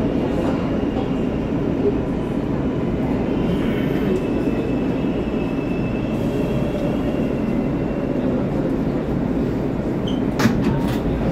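R143 subway car rumbling along the track as the train slows into a station, heard from inside the car. A faint high whine runs through the middle, and a short sharp click comes about ten seconds in.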